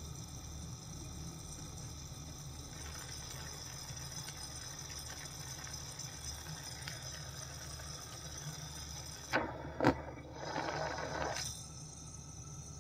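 Steady rushing hiss of a hand-held glassblowing torch flame. Near the end come two sharp clicks, then about a second of louder rushing.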